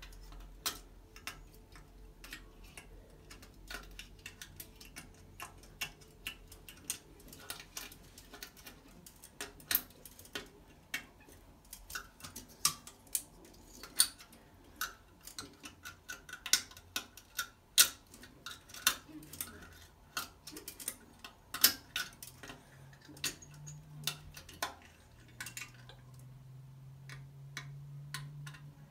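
Thin metal wire tool and a hand working inside a toilet's porcelain trap to free a stuck object, giving many irregular sharp clicks and taps of metal and hard plastic against porcelain, denser and louder through the middle.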